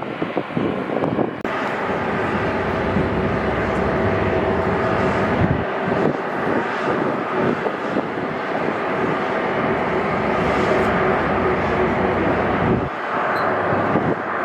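Jet airliner close by, its engines giving a loud, steady rushing noise with faint whining tones. The noise steps up abruptly about a second and a half in.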